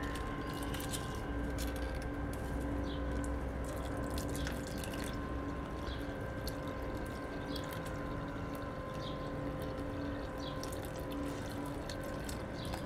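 Liquid seaweed fertilizer trickling and dripping from a plastic mug onto the potting soil of a jasmine, with scattered small drip ticks. A faint steady hum runs underneath.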